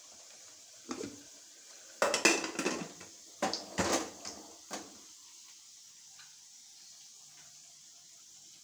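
Aluminium pressure cooker lid clanking and scraping as it is fitted and locked shut, a single clank about a second in and then a cluster of metal clatters over the next few seconds, dying away by about five seconds in.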